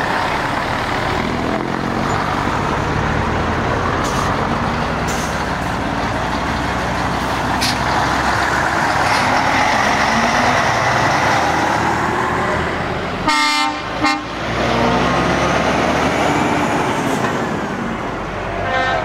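Heavy diesel trucks driving past one after another, their engines running under load as they pull away. About two-thirds of the way through, an air horn gives a loud honk lasting under a second.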